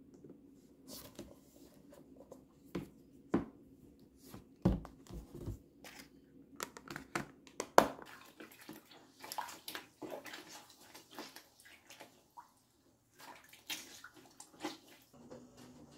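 Faint, scattered light clicks and taps of small objects being handled, at an irregular pace, with one sharper tap a little past halfway.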